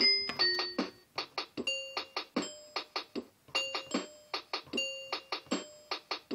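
Background music: a light, bouncy tune of short, quickly fading pitched notes, several a second.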